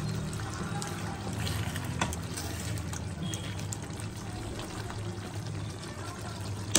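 A spatula stirring thick chicken gravy in a non-stick kadai, with wet sloshing and a sharp tap of the spatula against the pan about two seconds in. A steady low hum runs underneath.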